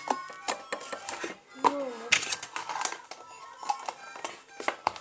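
Homemade slime being squished and pulled by hand: a quick, irregular run of sharp sticky clicks and pops over background music, with a short wavering pitched sound about two seconds in.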